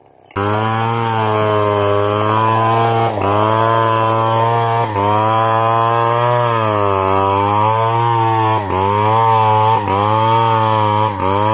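Stihl 070 chainsaw, a large two-stroke, running at high speed while ripping lengthwise through a log, its pitch sagging and recovering every second or two under the load of the cut. There are a few brief drops in the sound.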